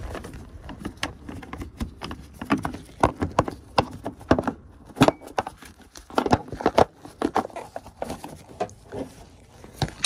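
Irregular knocks, clicks and rustles of hard plastic interior trim and fittings being worked loose and moved about by hand.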